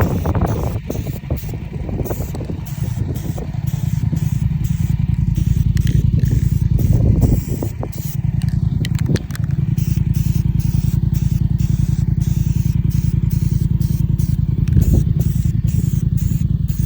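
Bobcat T650 compact track loader's diesel engine running steadily, with brief scraping and clatter from its bucket working dirt. The engine note dips briefly a few times as the load changes, and the sound cuts off suddenly near the end.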